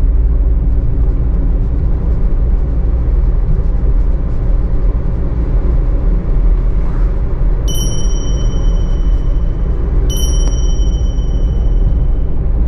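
Steady low rumble of engine and road noise inside a vehicle's cabin while driving. From about eight seconds in, three bright bell-like chimes ring out a couple of seconds apart.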